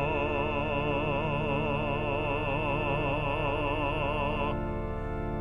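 A pansori singer holds the last syllable of a sung line in one long note with wide vibrato, over a steady sustained accompaniment chord. The voice stops about four and a half seconds in while the accompaniment holds on.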